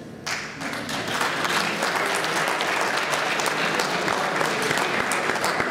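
Audience applause: many people clapping, starting a moment in and quickly filling out into steady clapping that carries on.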